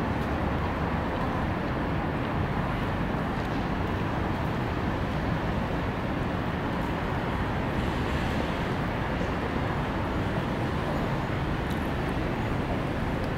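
Steady urban background noise: a continuous, even rumble and hiss of city sound, with no distinct events standing out.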